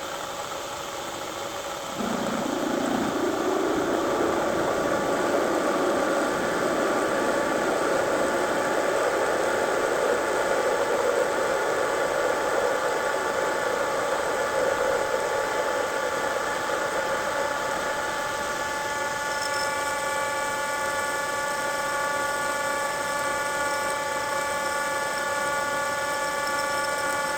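Milling machine spindle drilling an 11/16-inch hole into 416 stainless steel, the cutting noise starting about two seconds in as the drill bites. A steady multi-tone whine joins in about two-thirds of the way through.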